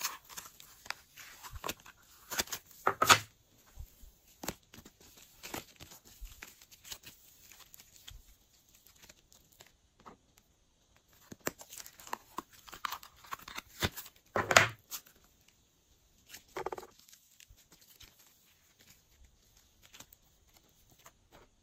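Thick slime being squeezed out of a plastic container and pressed by hand, giving a run of sticky crackling and peeling clicks. Louder crackles come about three seconds in and again about two-thirds of the way through, followed by a short squelch.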